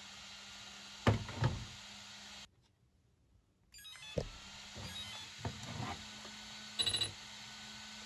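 Knocks and clunks from the snow racer's wooden and 3D-printed frame being handled, two about a second in and several more after the middle, with a brief burst of rapid electronic beeping near the end. The sound drops out almost completely for about a second in the middle.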